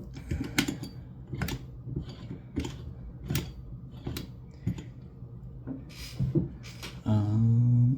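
Irregular sharp clicks and clacks of a Sargent & Greenleaf 6730 combination safe lock being handled and worked, roughly one or two a second. Near the end, a low held hum of a man's voice.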